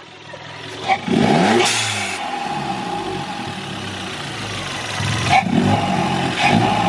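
Turbocharged 1.4 TFSI four-cylinder engine, breathing through an open cone-filter induction kit, revved about a second in and dropping back, with a short loud rush of air as the revs fall. A steady whistle runs under it, and the engine is blipped again near the end.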